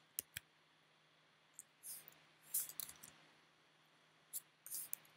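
A few faint computer mouse clicks, short and sharp, scattered through quiet room tone with a low steady hum.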